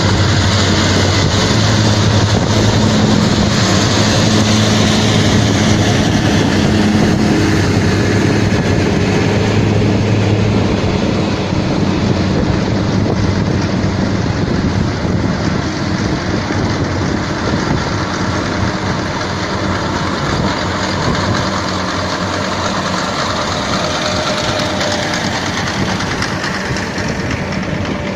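Tractor engine running with a ROC RT 1000 windrow merger at work in the field. A steady low hum holds for about the first ten seconds, then gives way to a broader mechanical rumble that slowly gets quieter.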